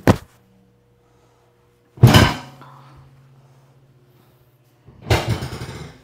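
Three loud thumps from chiropractic adjustment thrusts on a patient's back over a padded adjusting table. One short knock comes right at the start, the loudest about two seconds in and another about five seconds in, the last two ringing on briefly, over a steady low hum.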